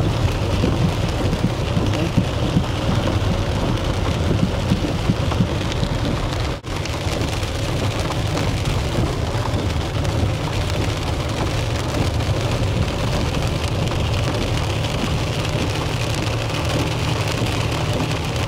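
Heavy rain falling steadily on a moving vehicle's roof and windscreen, with a constant low rumble from the vehicle running beneath it. The sound drops out for an instant about six and a half seconds in.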